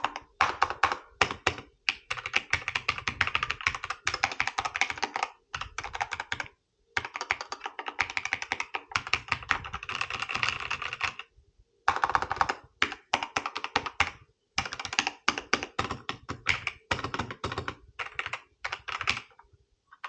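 Fast, continuous typing on a K68 mechanical keyboard: a dense run of key-switch clacks, broken by short pauses about six, eleven and fourteen seconds in.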